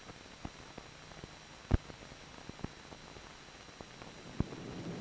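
Worn optical film soundtrack: a steady hiss with irregular clicks and pops, the loudest about two seconds in. Near the end an aircraft engine's noise starts to fade in and grow louder.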